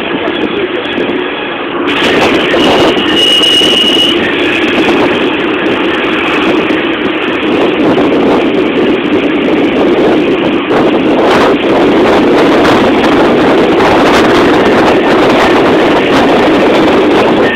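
Steady engine and road noise of a moving vehicle, heard from inside as it drives. A brief high-pitched tone sounds about three seconds in.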